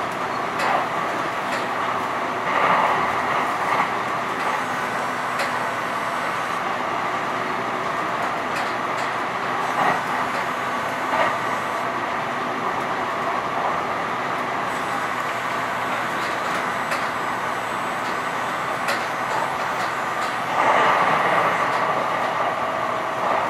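Denver RTD light rail train running along the track, heard from inside the car: a steady running noise with scattered clicks from the wheels. It grows louder for a stretch about three seconds in and again near the end.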